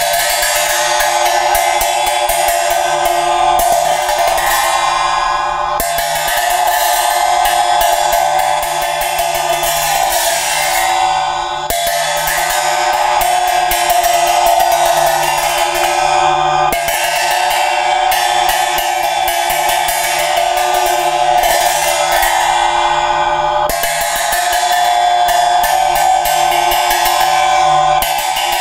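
A pair of Tibetan silnyen ritual cymbals played in the Drikung Kagyu manner: rapid strokes that keep the plates ringing continuously, in phrases of about five to six seconds with a short break between each.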